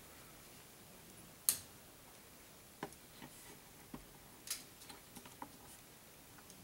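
Faint, sparse metal clicks and ticks as snap ring pliers and a bent pick work the internal snap ring out of a Nova G3 lathe chuck body. One sharper click comes about a second and a half in, then a handful of smaller ticks over the next few seconds.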